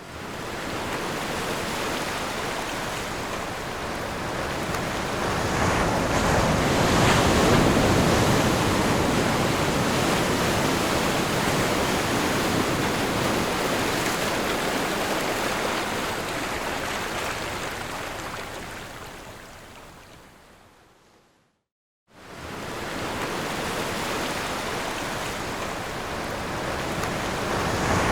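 Ocean surf breaking and washing on a beach, a steady rushing that swells about a quarter of the way in. It fades away to a brief silence about three quarters through, then comes straight back.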